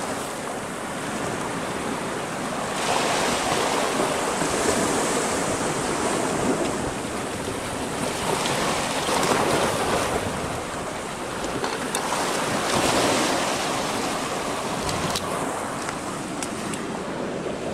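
Sea waves washing and breaking against a rocky shore, the surf swelling and easing every few seconds.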